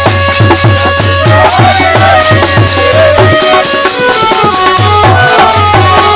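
Instrumental interlude of a folk bhajan: a harmonium plays the melody over a dholak beat of about three strokes a second, with the steady jingle of chimta tongs. The drum drops out briefly past the middle and comes back in.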